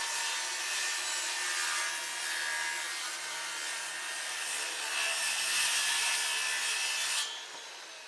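A tool working wood: a continuous rasping cut through the wood that stops about seven seconds in.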